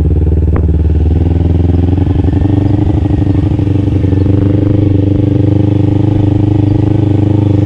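Engine of a Yamaha Mio scooter fitted with a Kawasaki Ninja engine running at a steady pace while riding, with one short click about half a second in.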